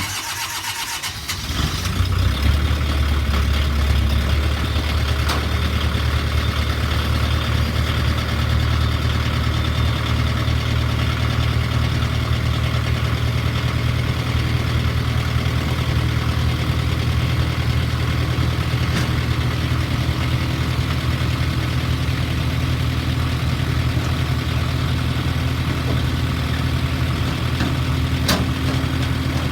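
New Holland LS160 skid steer's diesel engine cranking, catching within about two seconds and settling into a steady idle. It starts and keeps running after a fuel filter change and bleeding of the fuel system.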